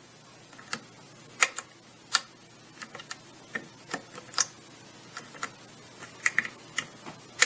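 Six-pin pin-tumbler lock with a Schlage-type keyway being single-pin picked with a hook pick and tension wrench: light, irregular metallic clicks as the pick lifts the pins. A sharper click near the end is a pin setting, taking the plug a little deeper into a false set.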